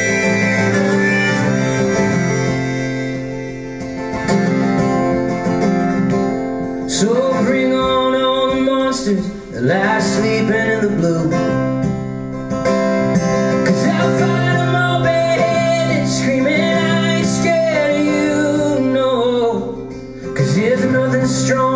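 Solo acoustic guitar played live, joined by a man singing from about a third of the way in.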